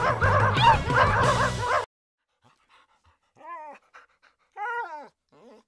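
Music that cuts off abruptly about two seconds in; after a short silence, a dog whines in a few short calls, each rising and falling in pitch.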